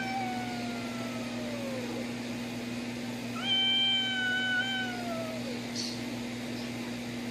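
A domestic cat yowling at a dog: two long, drawn-out yowls, each sliding down in pitch at its end.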